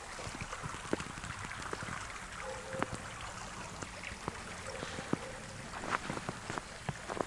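Small woodland creek flowing, an even rushing murmur of water with many scattered sharp ticks and drips through it.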